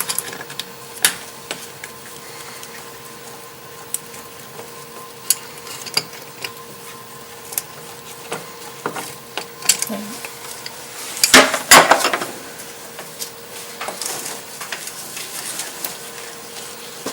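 Pliers working a hose clamp off the plastic coolant recovery tank of an MK4 VW Jetta: scattered metallic clicks and knocks, with a louder clatter about eleven seconds in. A faint steady tone sits underneath.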